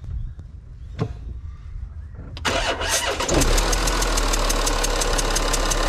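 Audi Q7 diesel engine starting about two and a half seconds in: it cranks briefly, catches and settles straight into a steady idle with a rapid, even ticking clatter. The owner suspects a failed copper sealing washer under one of the injectors, leaking with a hiss.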